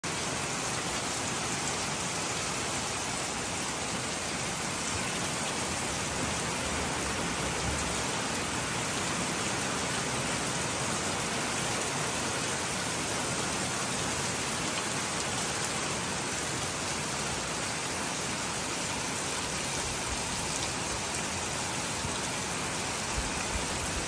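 Heavy rain pouring steadily onto the ground and puddles: a dense, even hiss that does not let up.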